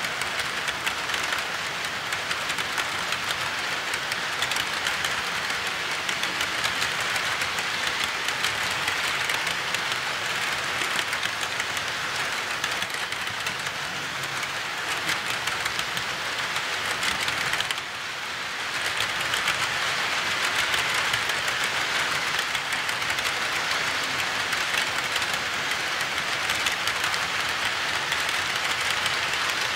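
HO-scale model freight cars rolling past on layout track, their small metal wheels making a steady, dense clicking rattle over the rails and joints. The sound dips briefly about two-thirds of the way through.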